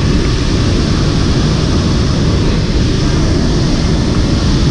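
Loud, steady engine and air noise inside a military transport aircraft's cargo hold in flight.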